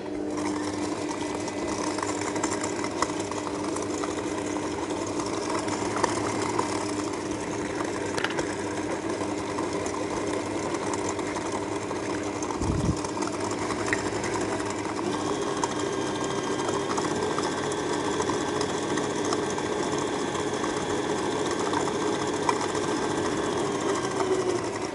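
Kenwood stand mixer's motor switched on and running steadily with a wire balloon whisk beating butter and sugar in its steel bowl, the creaming stage of a cake batter. It switches off near the end.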